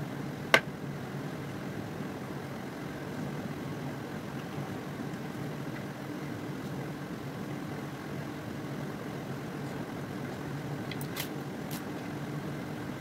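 Steady low mechanical hum, with one sharp click about half a second in and two or three fainter clicks near the end, from hands working food on steel plates.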